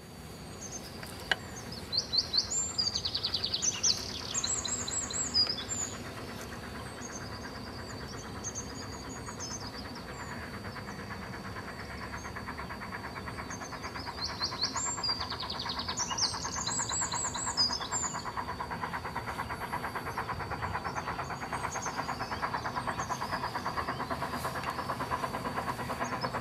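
LMS Coronation-class four-cylinder Pacific steam locomotive No. 6233 Duchess of Sutherland working hard up a steep gradient, its exhaust a steady rush that grows louder as it approaches, the beats coming through as a rhythmic pulse near the end. A songbird sings bursts of chirps over it, loudest near the start and again about halfway.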